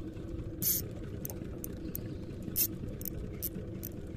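Boat engine running at a steady idle, with short, sharp high-pitched ticks every half second or so.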